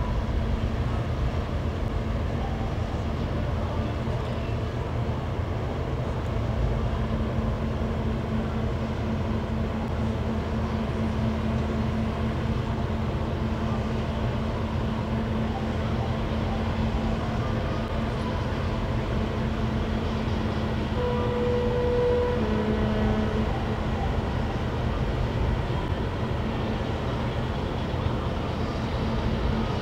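Steady low rumble of boat engines with a constant droning hum. About two-thirds of the way through, a brief two-note tone sounds, the second note lower.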